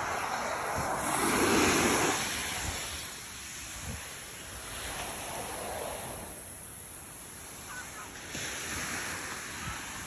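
Ocean surf on a beach: waves breaking and washing in, swelling to their loudest about a second in, then easing to a softer, rolling wash.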